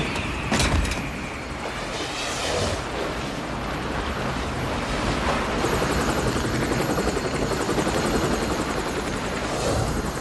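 Helicopter rotor chopping over the rushing wind and rumble of a speeding train, with a sharp thud about half a second in. A fast, even rotor beat comes through more plainly from about halfway.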